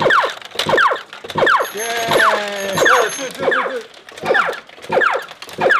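Pachinko machine's electronic sound effects: falling synthesized sweeps repeating about twice a second, with a short stepped electronic tune and high beeps in the middle.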